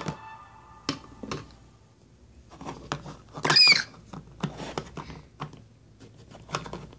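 Small plastic toy figures tapped and shuffled on a hard surface, a scatter of light clicks and knocks, with one short high squeak about three and a half seconds in.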